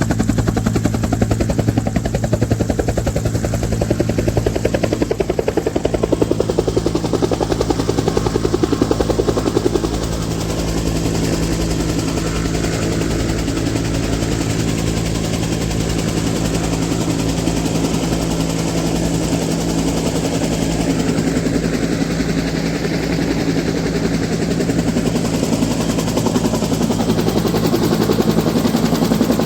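Small engine of a water pump running steadily with a fast, even firing beat, easing off slightly about ten seconds in.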